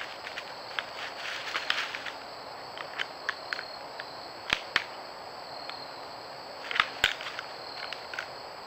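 Two white-tailed bucks stepping and rustling in dry leaf litter, with scattered sharp clicks and snaps, the loudest about four and a half and seven seconds in. A faint steady high whine runs underneath.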